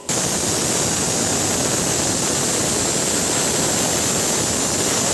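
Loud, steady sizzling as oil left in a frying pan is poured over the brinjals and masala in a pressure cooker. It starts suddenly.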